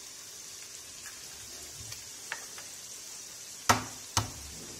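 Onions frying in a pan with an egg just broken over them, sizzling steadily. Two sharp knocks come near the end, about half a second apart.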